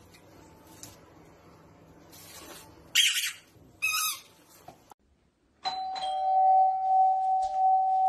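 Two short, loud high-pitched sounds about a second apart, then a steady electronic ringing tone, like a doorbell buzzer, that starts a little past halfway and holds level without fading.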